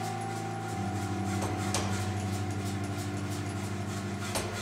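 Power hammer running with a steady mechanical hum and a fast, even beat as a red-hot bar is forged between its dies.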